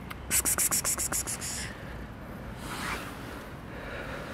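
A quick run of about nine scratching strokes in just over a second, then a softer rustle about three seconds in.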